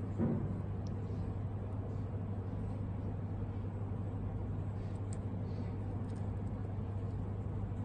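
Steady low hum over even background noise, with one short bump a fraction of a second in.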